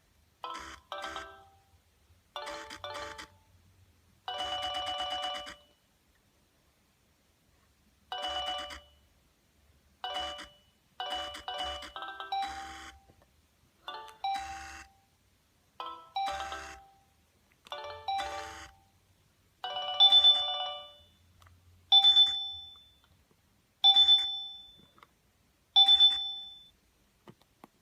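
Nokia 6070 mobile phone playing short electronic ringtone melodies, in brief phrases of quick notes separated by pauses. Near the end, a bell-like chime repeats about every two seconds, each strike fading away.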